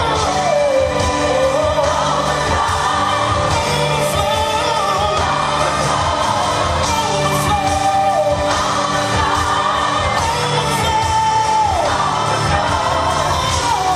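Upbeat pop-style worship song playing: a voice sings a melody over a band with a steady beat.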